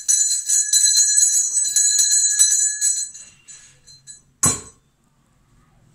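Hand bell at a home puja shrine rung rapidly and continuously, stopping about three seconds in and fading away. A single loud knock about four and a half seconds in.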